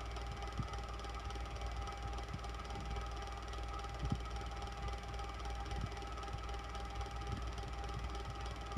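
Electric fan running steadily: a low motor hum and an airy whir carrying two steady tones, with a few faint ticks at irregular moments.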